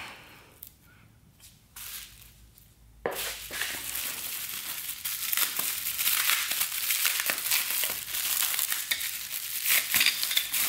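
Clear plastic bubble-wrap packaging crinkling and crackling as it is handled and unwrapped by hand. A few small clicks come first, then dense irregular crinkling starts about three seconds in.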